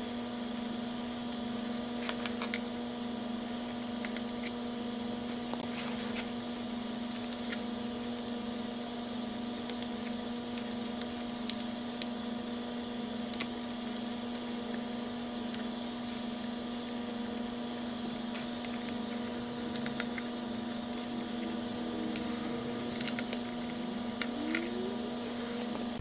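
Steady electrical hum with several fixed tones, the lowest and loudest one low-pitched, broken by a few faint clicks. A faint high whistle slowly rises in pitch over several seconds.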